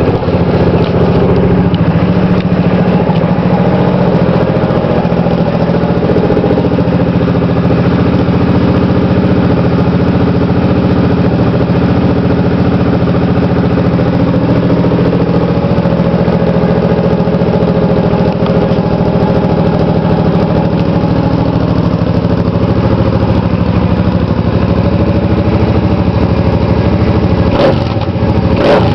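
Suzuki C50's 805 cc V-twin idling steadily just after starting, through gutted stock exhaust pipes with cut-down cherry bomb mufflers fitted in their ends. The throttle is blipped briefly near the end.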